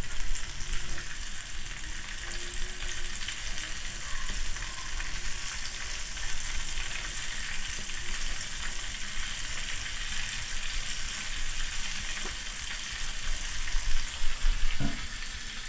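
Batter- and biscuit-crumb-coated hadallo deep-frying in a pan of hot oil at medium heat, a steady sizzling crackle, with a few louder clicks near the end.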